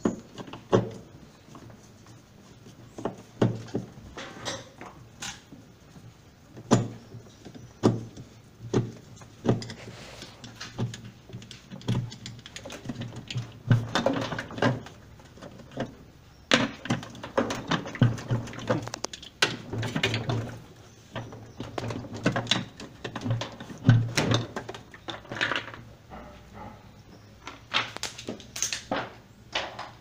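Irregular knocks, clicks and scrapes of a hand tool against the plastic pulsator and metal hub inside a top-load washing machine drum as the pulsator is worked loose and lifted off.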